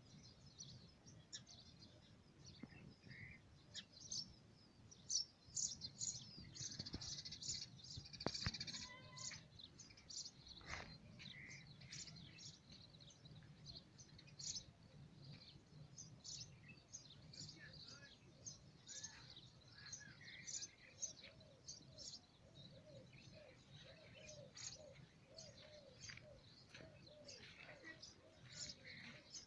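Faint chirping of small birds in open farmland: many short, high calls all the way through, with a lower call repeated over and over in the second half.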